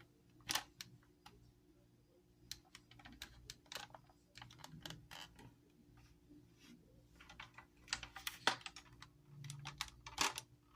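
Hard plastic parts of a portable shampoo bowl clicking and knocking as they are handled and fitted together: irregular light taps, with a few louder knocks about half a second in, in the second half, and near the end.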